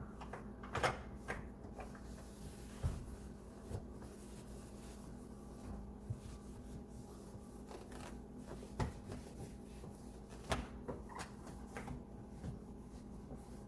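Scattered light knocks and clicks from handling while a microwave is wiped down with a dry cloth, over a faint steady hum.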